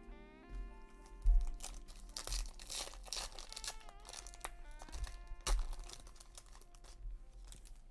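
Crinkling and rustling of a foil Yu-Gi-Oh booster pack and its cards being handled, in several short spells with a sharp crackle about a second in and another near the middle, over background music.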